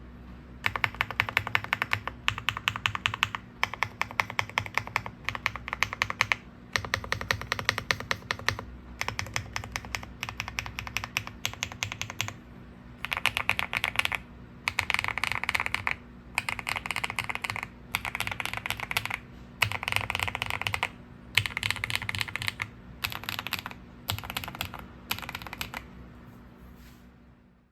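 Typing on a Monka K75 mechanical keyboard with Sea Salt V2 early-tactile switches: fast runs of key clacks in bursts of a second or two, broken by short pauses.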